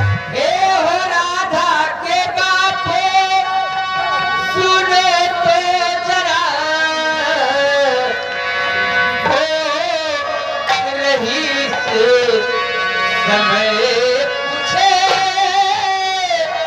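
Nautanki singer singing a slow melody into a stage microphone, holding long notes with wavering, sliding ornaments, over light drum accompaniment.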